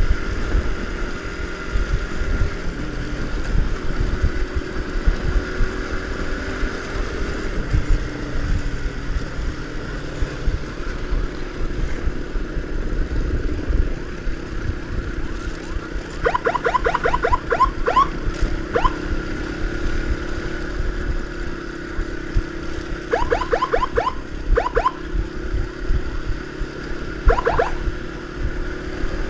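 Motorcycle running at road speed, its engine note drifting slowly up and down over heavy wind rumble on the microphone. Three times in the second half comes a quick burst of short repeated beeps.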